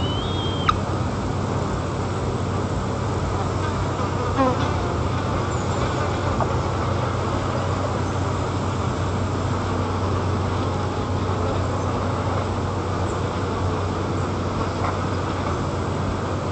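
Steady wind noise on the nest camera's microphone with a low, steady hum underneath. A short high call at the very start and a brief falling call about four seconds in.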